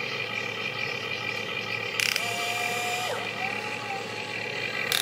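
Huina remote-controlled excavator running, its motors and gears giving a steady whine as the upper body swings round. A short hissing burst comes about two seconds in and another at the end.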